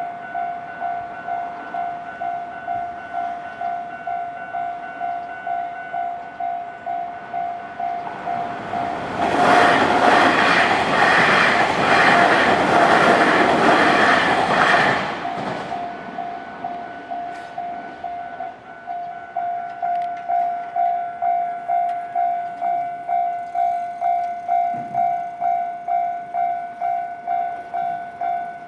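Japanese level-crossing warning bell clanging steadily, just under twice a second. For about six seconds in the middle it is swamped by a Nankai Main Line train passing over the crossing, a loud rumble with a regular clatter of wheels over the rail joints. The bell falters briefly about two-thirds of the way through, then carries on.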